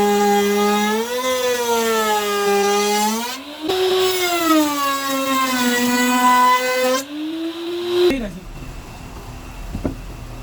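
Small router motor in a homemade router table running at high speed, its whine sagging and recovering in pitch as it takes load. About eight seconds in it shuts off with a falling pitch, leaving a low hum.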